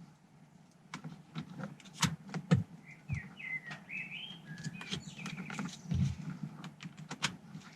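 Scattered sharp clicks and knocks of the door switch panel's plastic wiring connectors being plugged in and handled. A bird chirps a quick run of short notes in the middle.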